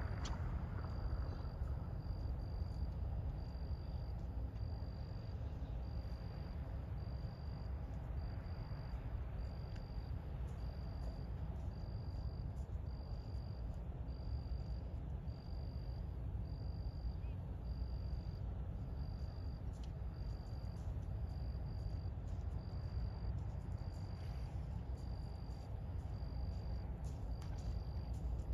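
Low steady rumble of a large ship's engines moving slowly across the harbour. A thin high chirp repeats evenly a little more than once a second over it.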